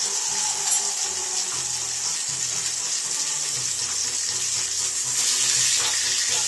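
Ahi tuna steak sizzling in hot olive oil in a frying pan as its edges are seared: a steady hiss.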